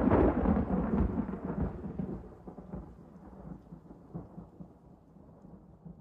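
A thunder-like rumble with crackling that starts on a loud hit and fades away over about five seconds, closing the song.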